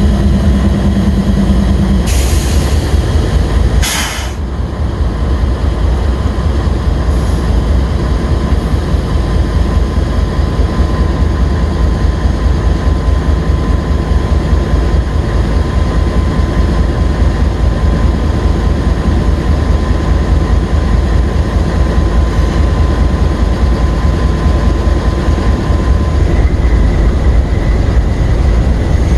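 Norfolk Southern freight train rolling past with a steady heavy rumble. There are two short sharp noises about two and four seconds in, and a faint thin steady whine over the rumble through most of it.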